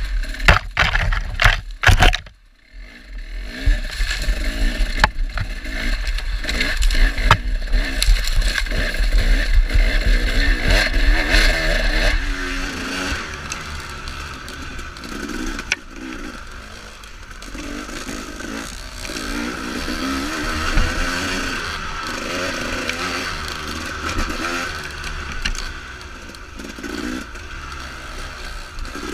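Dirt bike engine heard from the rider's own bike, the throttle opening and closing over rough forest trail, with wind buffeting on the microphone and knocks and clatter from the bike over the bumps for the first half, easing briefly a little over two seconds in.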